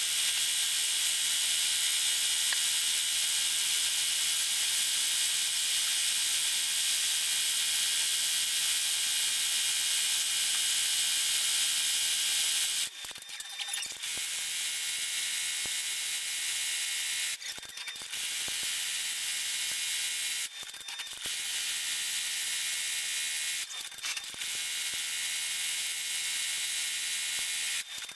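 Multi-needle embroidery machine stitching, a dense, steady, fast mechanical chatter. It breaks off for about a second roughly 13 seconds in as it switches to the next thread colour, then stops briefly a few more times while stitching the next colour.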